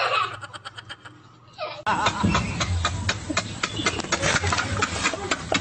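A man laughing hard and loudly, starting abruptly about two seconds in after a few softer sounds.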